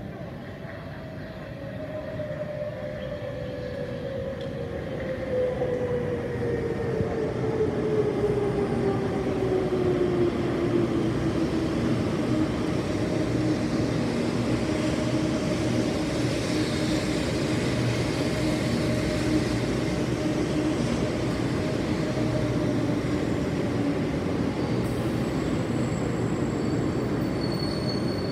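Taiwan High Speed Rail 700T bullet train pulling into a station, growing louder over the first few seconds as it arrives. A whine from its traction motors falls in pitch as it slows, then levels off over a steady rumble.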